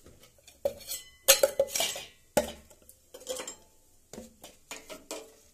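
Stainless-steel tiffin containers and lids clattering and clinking as they are handled and fitted together: a series of sharp metallic knocks, some with a brief ring, loudest between about one and two and a half seconds in.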